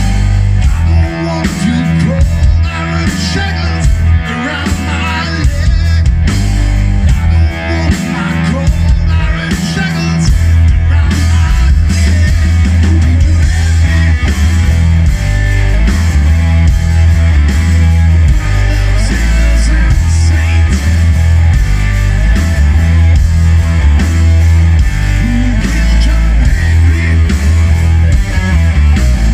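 Live rock band playing loud and steady, with electric guitar, electric bass and drum kit, heard through the stage PA.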